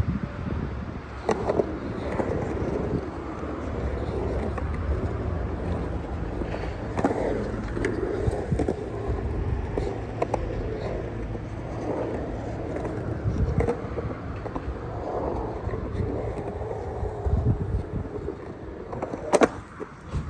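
Skateboard wheels rolling over a concrete bowl, a steady rumble, with a few sharp clacks of the board: about a second in, around seven seconds in, and near the end.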